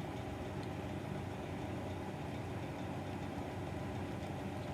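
Steady low mechanical hum, like a motor or fan running, with a faint tick a little over half a second in.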